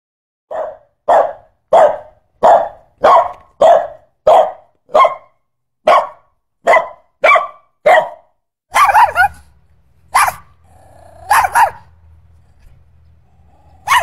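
A small dog barking repeatedly, about a dozen sharp barks evenly spaced a little more than half a second apart. After that come a few irregular barks with a low growl between them.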